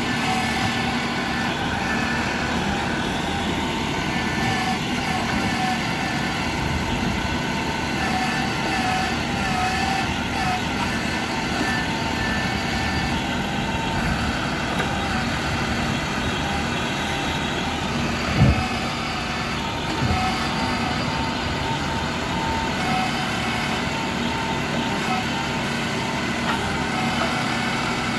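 Tractor engine running steadily while it powers a Bull backhoe attachment digging sand, with two short thumps about two-thirds of the way through.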